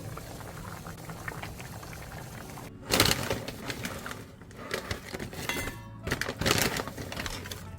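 Kitchen cooking sounds, likely liquid bubbling or being poured, heard as two loud noisy stretches about three and six and a half seconds in, each starting abruptly, over a quieter steady background.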